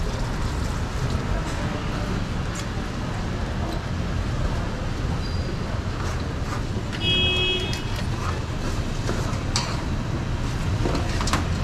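Steady background noise of a busy street market, with a few light clicks and a brief high-pitched beep about seven seconds in.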